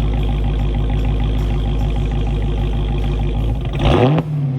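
Supercharged 6.2-litre Hemi V8 of a Dodge Challenger Hellcat idling loud through Kooks long tube headers and a Corsa XTreme catback, with a pulsing low rumble. About four seconds in, a quick throttle blip makes the revs rise sharply and then settle back.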